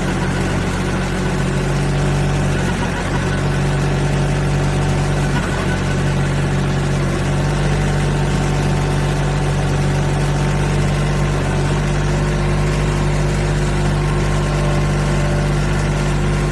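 Car engine, the 3.4-litre V6 of a 2007 Pontiac Torrent, running steadily, heard from inside the cabin as an even low drone.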